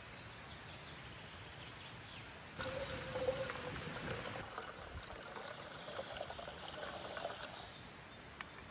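Water poured from a bottle into a metal camping kettle, a steady splashing stream that starts suddenly and runs for about five seconds before stopping.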